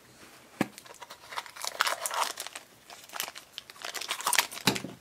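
Thin clear plastic blind bag crinkling and being torn open by hand, with irregular crackles and a sharp plastic click about half a second in.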